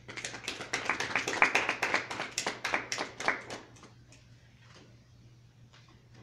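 Small audience clapping after a poem, dying away after about three and a half seconds with a few last claps.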